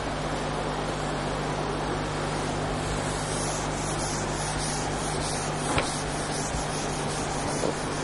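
Whiteboard eraser wiped across the board in repeated back-and-forth strokes, a soft rubbing swish starting about three seconds in, with a couple of light knocks, over a steady hiss and low hum.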